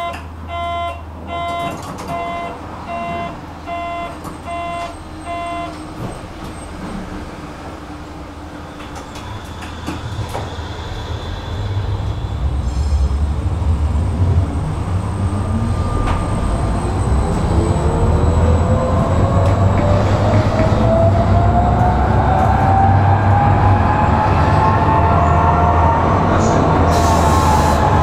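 Tram door warning beeping in an even run of about eight beeps, then the electric tram pulling away: its traction-motor whine rises steadily in pitch as it accelerates, over a growing rumble of wheels on rails, and the whine eases down again near the end.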